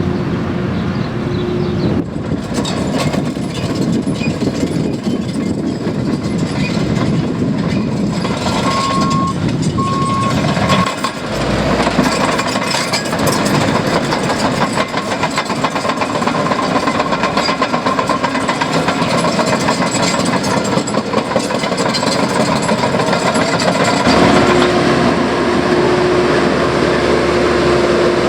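Tracked earthmoving machinery working: diesel engines running with a dense, continuous clanking of steel tracks. A reversing alarm beeps a few times about nine seconds in.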